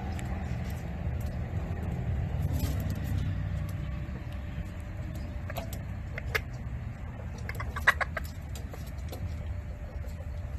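Bantam rooster giving a few short clucks, bunched near eight seconds in, over a steady low rumble.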